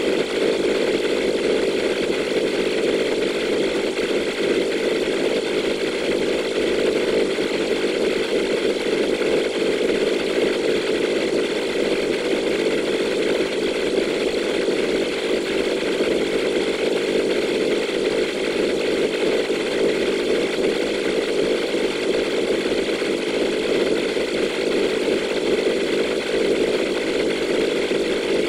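Futuristic sci-fi sound effect: a steady, unbroken mechanical-sounding drone, heaviest in the low-mid range, holding the same level throughout.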